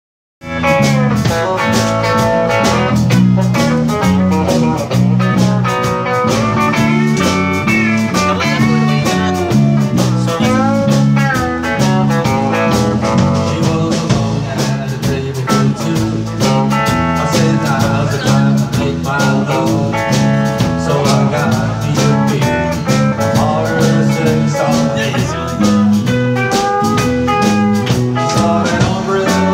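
Live country band playing a steady, mid-tempo song: electric guitar, acoustic guitar, electric bass and a Sonor drum kit, with a man singing lead.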